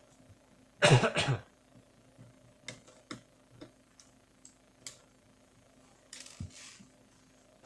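Light, scattered plastic clicks as the trim strip above a Toshiba Satellite A210 laptop's keyboard is pried off its clips, after a short burst of voice about a second in.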